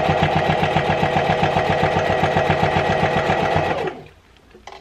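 Electric sewing machine stitching a seam on a fabric face mask at a fast, even pace, then stopping abruptly about four seconds in.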